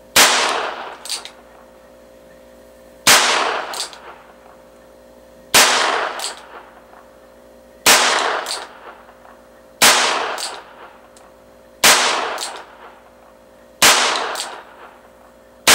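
Arminius .22 LR revolver fired single action, eight shots about two to three seconds apart, the last right at the end. It is fired from inside a house, each sharp report trailing off with room echo and followed by a fainter sharp crack a little under a second later.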